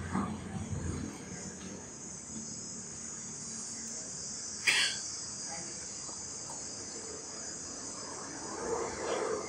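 Steady high-pitched insect chirring, like a chorus of crickets, with one brief sharp sound about halfway through.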